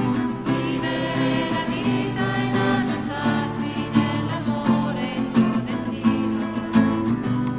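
A church hymn played on strummed acoustic guitar, with voices singing.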